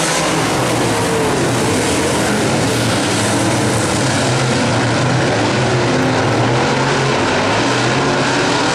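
A field of dirt-track modified race cars running at speed around the oval. Several V8 engines blend into a loud, continuous drone, with the pitches wavering up and down as cars go through the turns and pass.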